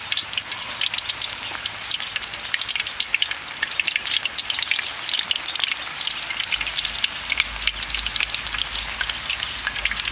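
Banana slices deep-frying in hot oil in a wok: a steady, dense sizzle full of tiny crackling pops.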